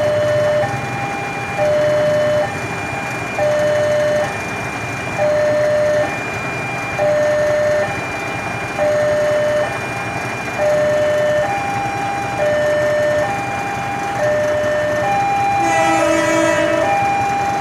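Railroad level-crossing warning alarm: two electronic tones alternate low and high, each held just under a second, repeating steadily. Near the end a train horn blows briefly, for about a second.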